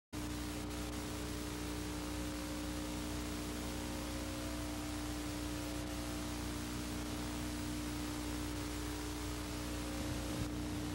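Steady hiss with a constant electrical hum beneath it: the noise floor of an old analog videotape recording, with no other sound.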